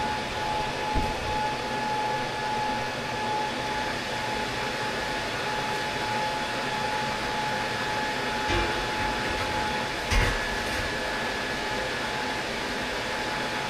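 Steady fan-like mechanical hum with a constant tone under it. Over it come a few dull knocks as the heavy steel grinder stand is handled and set upright on the steel welding table, the loudest about ten seconds in.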